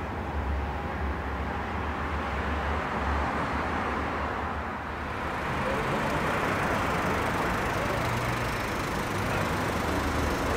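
Low rumble of a distant U-Bahn train on an elevated viaduct. About five seconds in it gives way to steady street traffic, with a car driving past.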